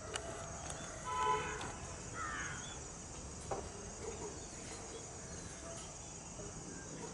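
Steady high-pitched insect trilling. About a second in comes a brief, louder pitched tone, followed by a short falling chirp and a faint click a little after three seconds.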